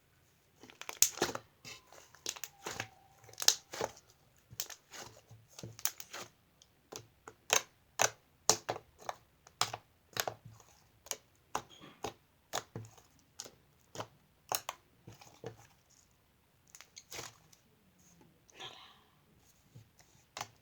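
Fluffy shaving-cream slime being squeezed and poked by hand, giving irregular sharp clicks and crackles as trapped air pops out, about one or two a second.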